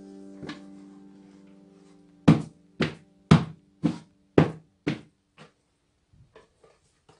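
Background music fades out. Then come about seven sharp knocks, evenly spaced at roughly two a second and each fainter than the last, followed by a few faint taps.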